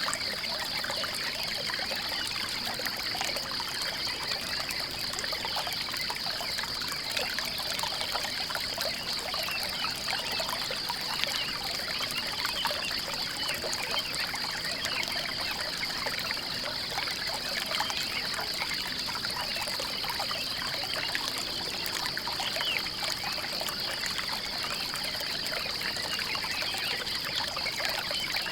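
Water trickling and pouring steadily, like a small stream running over stones. A steady high-pitched buzz sits over it.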